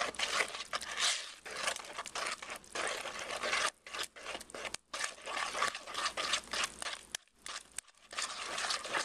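A whisk stirring flour into a wet batter of milk, eggs and melted butter in a plastic mixing bowl: quick, irregular wet strokes with a few brief pauses.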